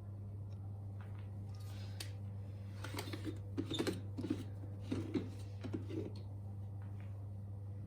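Light clicks and soft knocks of small objects being handled, bunched in the middle, over a steady low hum.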